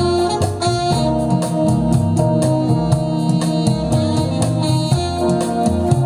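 Recorded music with a steady beat, bass line and sustained instrument notes, played back through the NFS225 prototype amplifier and a pair of large floor-standing speakers and picked up in the listening room.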